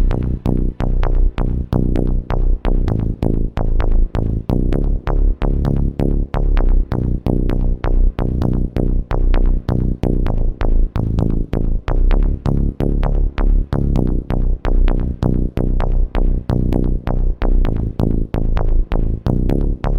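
Electronic dance music with a fast, steady beat over sustained synth tones.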